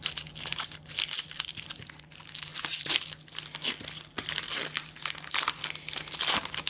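Foil Pokémon booster pack wrapper crinkling in bursts as it is handled and torn open.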